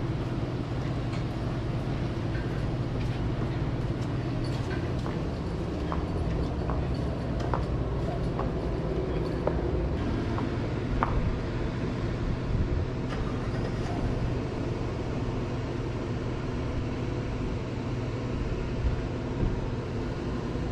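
Steady low mechanical hum, with light clicks scattered through the middle of the stretch.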